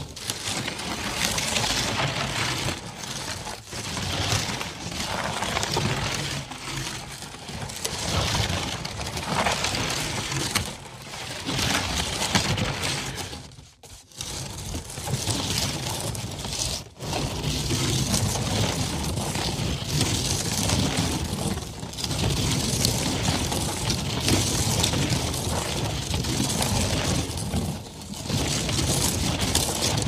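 Catapult rolling along a dirt road: its wheels rolling over the rough ground make a continuous, uneven rumble and clatter. The sound drops away briefly about halfway through, then again a few seconds later.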